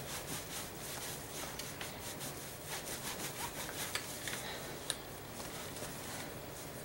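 Microfiber cloth rubbing over a freshly waxed shotgun's wood and metal, buffing off paste wax in quick, repeated soft strokes. A single light click about five seconds in.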